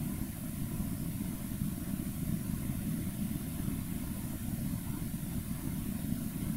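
Steady low rumble of background noise, even and unchanging throughout.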